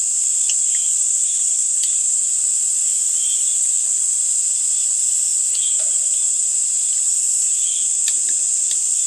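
Chorus of summer insects: a steady high-pitched shrilling, with a softer pulsing call repeating every second or two beneath it. A few faint clicks are heard along the way.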